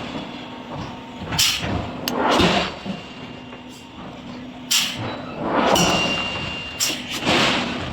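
Heavy forging impacts on metal at irregular intervals, about five in all, each followed by a short burst of rushing noise.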